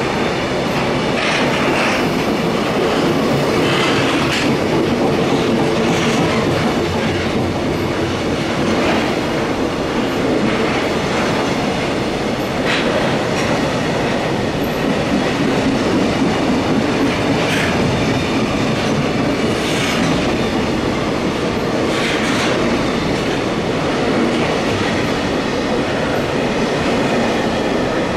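Freight train rolling past, its wagons running steadily with the repeated clickety-clack of wheels over rail joints.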